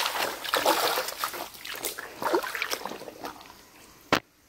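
Water splashing and sloshing as rubber boots wade through a shallow stream, fading away over the first three seconds. A single sharp click near the end.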